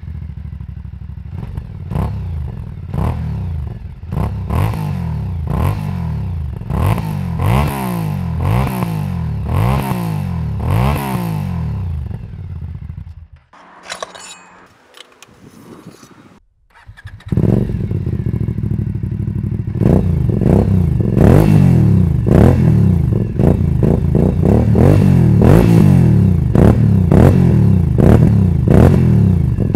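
Aprilia Dorsoduro V-twin through Arrow slip-on silencers with the dB killers fitted, blipped again and again from idle, about one rev a second, rising and falling. The engine goes quiet for a few seconds, with faint small clicks while the baffle is pulled from the silencer. Then it revs again, plainly louder and harsher with the dB killers out.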